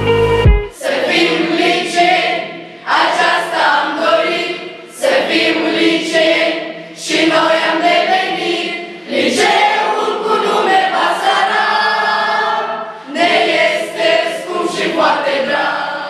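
A choir of young mixed voices, girls and boys, singing together in phrases of about two seconds with short breaks between them. It comes in about half a second in, as earlier music cuts off.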